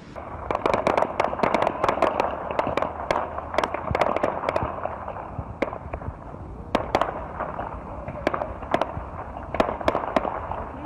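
Gunfire from an armed clash: many sharp shots, in rapid runs in the first few seconds and then more scattered, over steady outdoor background noise.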